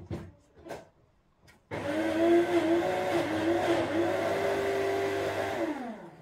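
Electric blender switched on about two seconds in, its motor running loud and steady with a slightly wavering hum as it purées vegetables for baby food, then spinning down and stopping near the end. A few soft knocks come before it starts.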